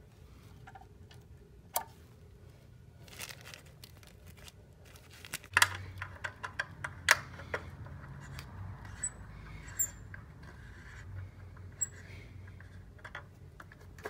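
Clicks and snaps from a Fire-Lite BG-10 manual fire alarm pull station being closed up and handled, with two sharp snaps about five and a half and seven seconds in. A low hum runs beneath from about halfway.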